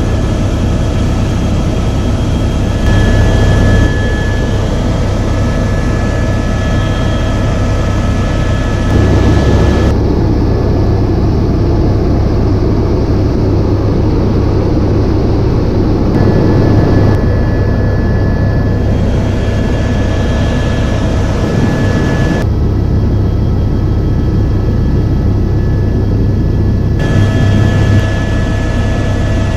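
Helicopter in flight heard from inside the cabin: a loud, steady low rotor drone with a thin high whine over it. The tone changes abruptly a few times.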